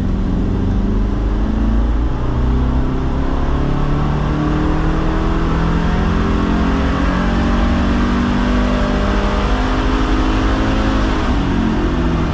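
Subaru FB25 2.5-litre flat-four engine at full throttle on a dyno run, heard from inside the car, its revs climbing slowly and steadily for about eleven seconds and then dropping off near the end as the throttle is released.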